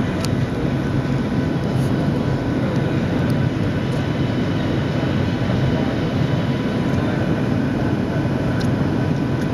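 Jet airliner cabin noise heard from a window seat: the engines and rushing air make a steady, even drone, heaviest in the low end, with a faint thin whine above it.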